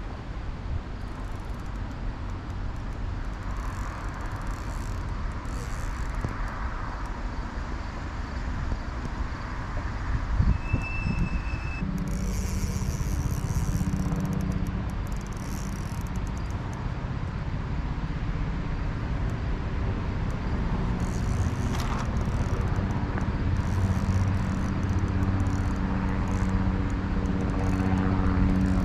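Wind rumbling on the microphone, then about twelve seconds in a steady engine drone with a low hum comes in and slowly grows louder.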